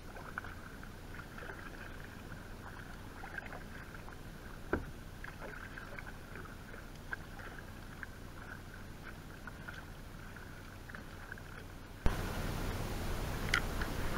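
Faint water sounds of a kayak being paddled: light dripping and lapping with many small ticks and crackles, and one sharper knock about five seconds in. Near the end it jumps to a louder rush of wind and water.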